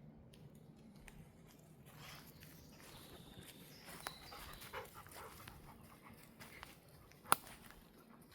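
Labrador panting close by, faint, with one sharp click or snap a little past seven seconds in.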